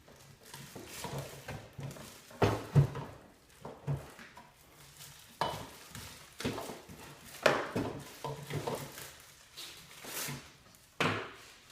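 Plastic packaging being pulled off and crumpled, with irregular crackling and several sharp knocks as plastic parts are handled and set down.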